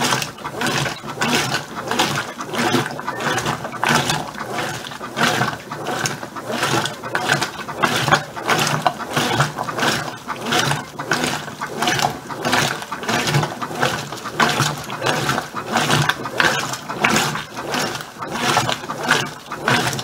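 Brastemp BWK15 top-load washing machine agitating: the agitator drive whirrs through quick, regular back-and-forth strokes, with water sloshing and splashing around the clothes at an extra-low water level.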